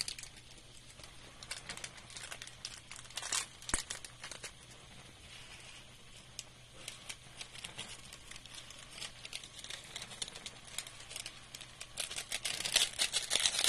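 Plastic seasoning sachet crinkling and being torn open as it is handled, heard as scattered small sharp clicks and rustles that grow denser and louder near the end.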